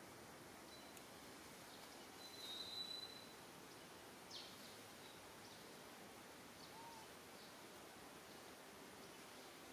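Quiet outdoor background hiss with a few faint, high-pitched calls: a thin steady whistle lasting under a second about two to three seconds in, then a short falling squeak a little later.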